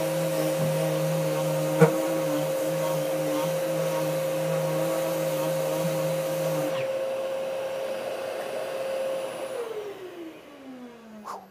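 Uneeda 5-inch EKASAND random orbital electric sander running and sanding wood, with no dust extraction hooked up. About two-thirds of the way through the lower part of its sound stops, then the motor is switched off and its whine falls in pitch as it winds down near the end.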